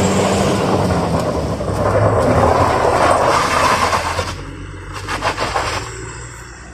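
Truck engine labouring up a steep dirt incline, a loud rumble that fades away about four seconds in.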